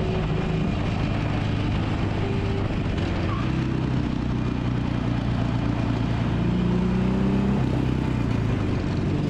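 Motorcycle engine running steadily while riding, with a steady rushing noise over it; the engine note shifts about three seconds in and rises slightly near the end.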